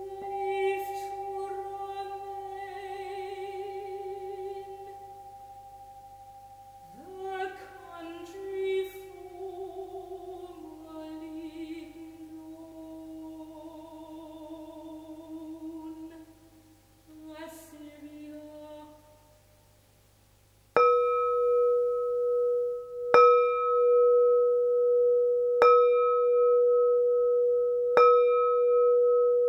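Slow music: a wavering melody with vibrato over a steady held drone, fading out, then after a short pause a bell struck about every two and a half seconds, each strike ringing on into the next.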